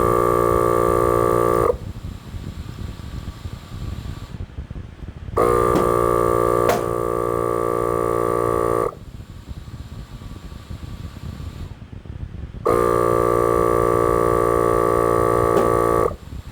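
Milwaukee portable air compressor running in three buzzing bursts of about three and a half seconds each, with pauses of quieter noise between them. It is pumping up a basketball wedged behind a truck fender to push the dent out.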